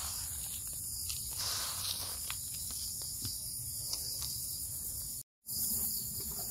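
Steady high-pitched chirring of crickets and other insects, with faint rustling and clicking of complete fertilizer granules being handled and scooped out of a bucket. The sound cuts out completely for a moment about five seconds in.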